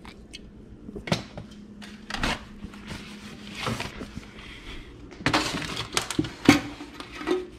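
Items being handled and set down on a cluttered workbench: a few sharp knocks and clinks of metal parts and a metal tray, loudest and most frequent about five to six and a half seconds in, with rustling between.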